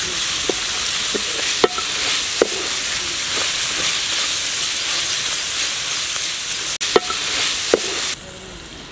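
Chopped vegetables sizzling in oil in a metal pan while being stirred with a wooden spoon, which knocks against the pan several times. The sizzle drops away suddenly near the end.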